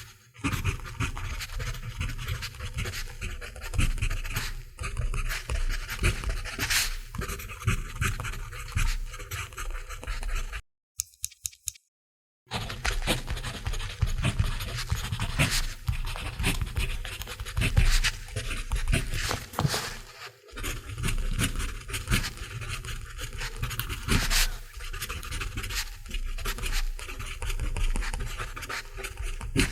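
Mechanical pencil lead scratching on paper in quick, irregular writing strokes. The sound cuts out for almost two seconds near the middle.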